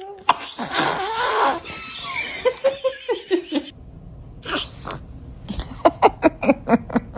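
A loud sneeze about a third of a second in, then voices. Near the end comes laughter in quick short bursts.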